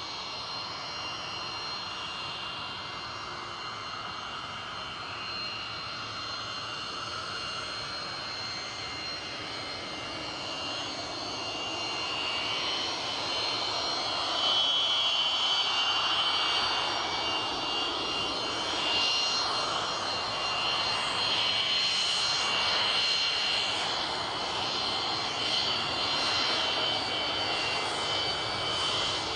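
A-4 Skyhawk's Pratt & Whitney J52 turbojet whining with several high steady tones as the jet taxis. It grows louder about halfway through as power comes up for the takeoff roll.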